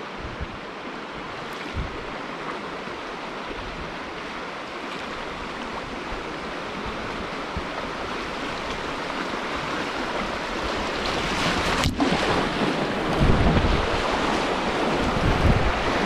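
River rapids rushing, growing louder toward the end as the whitewater comes closer, with wind buffeting the microphone in the last few seconds.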